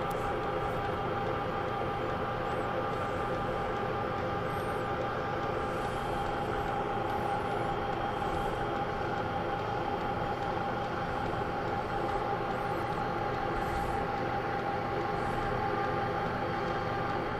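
Manual metal lathe running steadily, a constant whining hum, while a center drill in the tailstock drill chuck is slowly fed into the end of the spinning 1-inch shaft.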